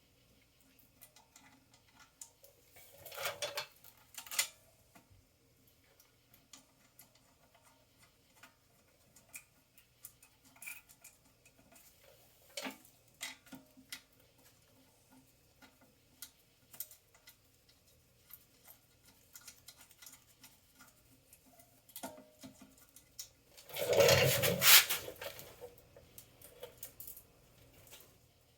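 Scattered light metal clicks and taps of hand tools and bolts as a new pump is bolted onto a pressure washer engine. There is a short louder clatter about three seconds in and a louder rattling clatter of about a second and a half near the end.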